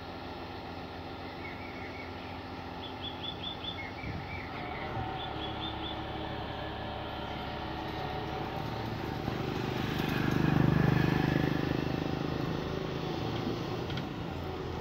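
Komatsu PC200 long-arm excavator's diesel engine running steadily while the machine works, growing louder to a peak about ten seconds in and then easing off. A bird chirps short runs of quick notes during the first few seconds.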